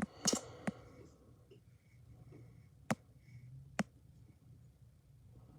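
A few sharp, isolated clicks over a faint low hum: a short cluster at the start, then single clicks about three and nearly four seconds in.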